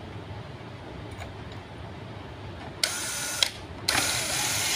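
Cordless drill driving a screw into a wooden chair frame, in two short runs: the first about three seconds in, the second starting about a second later.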